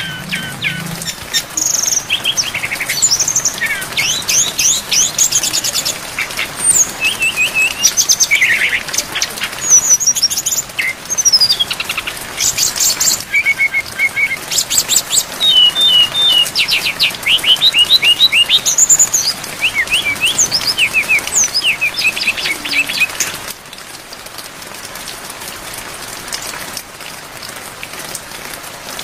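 Brown-chested jungle flycatcher (sikatan rimba dada coklat) singing a rapid, varied song of whistled sweeps and quick trills over the steady hiss of rain. The song stops a few seconds before the end, leaving only the rain.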